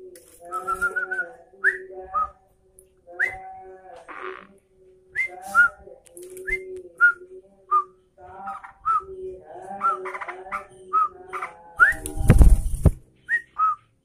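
Yellow-vented bulbul (trucukan) call: short, clear whistled notes, some rising and some falling, repeated in quick phrases over lower warbling notes. A brief rush of noise comes about twelve seconds in.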